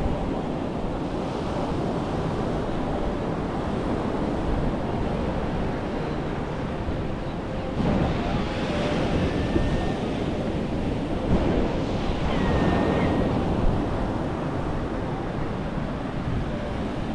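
Ocean surf breaking and washing up a sandy beach, with wind buffeting the microphone. The wash swells louder about eight seconds in and again around twelve seconds.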